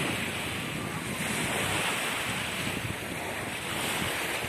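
Small river waves lapping and breaking on a stony shore, a steady wash of water, with wind buffeting the microphone.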